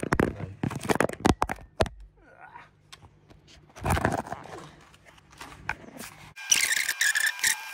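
Knocks, scrapes and rustles of a phone being handled and repositioned right at the microphone, over a low steady hum. About six seconds in a different bright, hissing sound with steady high tones takes over.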